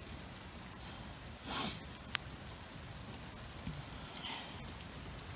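Steady falling rain, an even hiss of drops on the wet street and yard. A short breathy whoosh comes about a second and a half in, and a single sharp click just after it.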